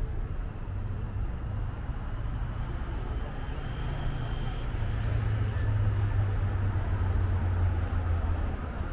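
Street traffic: a steady low engine rumble over the hiss of passing vehicles, growing louder about halfway through as a vehicle draws near.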